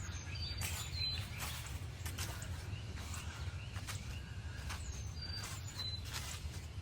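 Footsteps on a forest floor at a walking pace, each step a short crunch. A bird sings a short phrase of high whistled notes stepping down in pitch twice, near the start and again about five seconds in, over a steady low rumble of wind.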